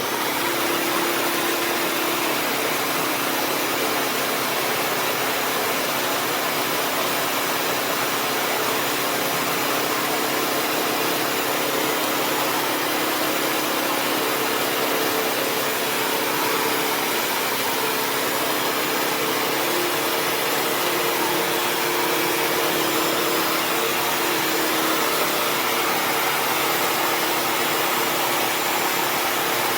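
Bissell CrossWave HydroSteam Pet wet-dry floor cleaner running, a steady loud suction noise with a faint hum under it; it cuts in suddenly at the start.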